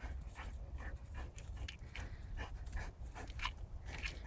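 Boxer dog panting in quick, even breaths, about three a second.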